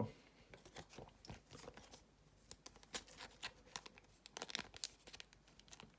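Faint plastic crinkling and scattered light ticks as a trading card is slid into a thin plastic card sleeve.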